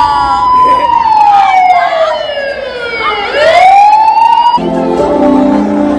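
Siren-like glide played over a PA sound system, falling slowly in pitch for about three seconds and then sweeping sharply back up. It cuts off about four and a half seconds in, when a music track with steady held chords comes in.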